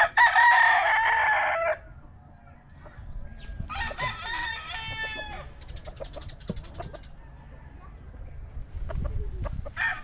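A rooster crowing loudly for almost two seconds, then a second, quieter crow about four seconds in.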